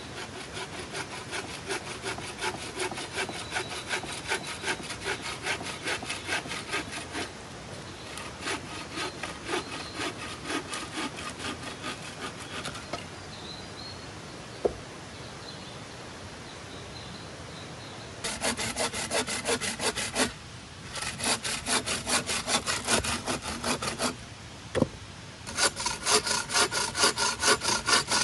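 Wooden-frame bow saw cutting through a tree branch in quick back-and-forth strokes, in several runs with short breaks; the runs in the second half are louder. A sharp knock in the pause near the middle and another a few seconds before the end.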